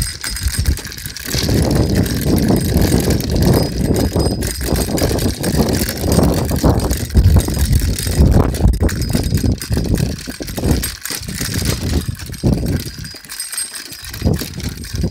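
Bicycle rolling over a bumpy, cracked concrete path, rattling with a busy low rumble that eases briefly twice in the second half.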